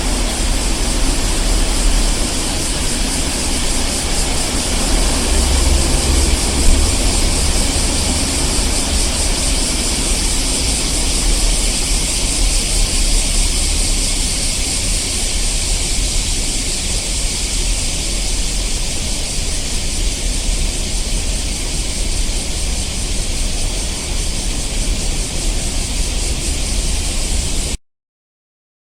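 Street ambience: a steady wash of passing traffic noise, with a heavy low rumble of a vehicle going by in the first several seconds that then eases off. The recording cuts off abruptly near the end.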